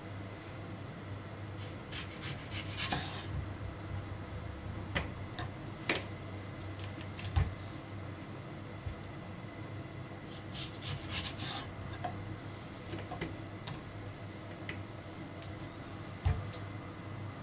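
Kitchen knife cutting into whole oranges on a wooden cutting board: rasping strokes through the peel with scattered small clicks, and a few dull knocks on the board. A steady low hum runs underneath.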